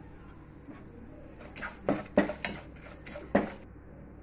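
A spoon clinking and scraping against a stainless steel pan while stirring chilli powder into a tempering of oil, curry leaves and dried red chillies. A run of sharp clinks starts about one and a half seconds in, the loudest a little after two seconds.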